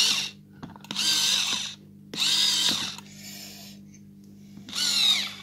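Battery-powered electric pencil sharpener grinding a pencil in four short bursts, each about half a second to a second long, as the pencil is pressed into it, over a steady low hum. The pencil is slow to come to a point.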